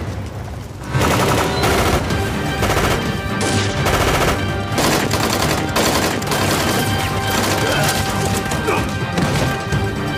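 Battle-scene gunfire: many shots in quick succession, bursts of automatic fire mixed with single shots. It begins about a second in and keeps up throughout.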